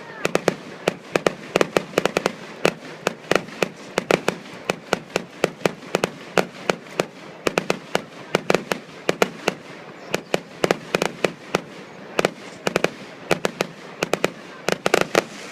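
Fireworks going off in a dense, irregular barrage of sharp bangs, several a second, with the bangs echoing back off the trees behind.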